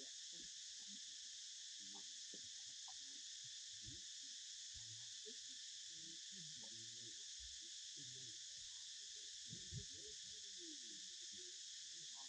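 Faint, steady high-pitched drone of an insect chorus, unchanging throughout, with scattered faint low sounds beneath it.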